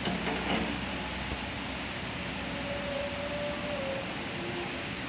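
Long-reach hydraulic excavator running steadily as it swings its boom to load dredged canal spoil into a dump truck.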